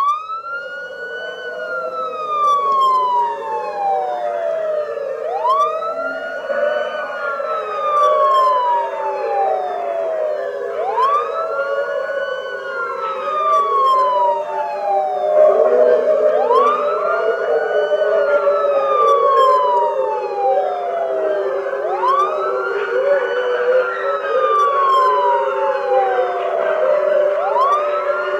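An emergency siren in a slow wail, each cycle rising quickly and falling over several seconds, repeating about every five and a half seconds, while a chorus of many canines howls along with it, their overlapping howls wavering in pitch beneath the siren.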